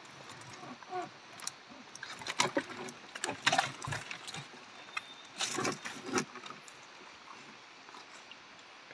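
A mahseer caught in a gill net thrashing as it is hauled into a boat: irregular knocks and splashes against the hull and floorboards, with the wet net rustling. The loudest knocks come about three and a half and six seconds in, and it grows quieter after that.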